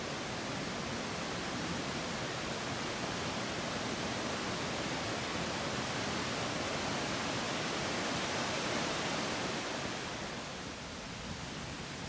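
Steady rushing of waterfalls on a mountain river, an even roar of water that drops a little in level near the end.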